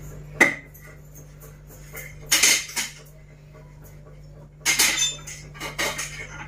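Short bursts of clinking and clattering, like household objects being handled: one about half a second in, a longer run around two and a half seconds, and two more near five and six seconds, over a steady low hum.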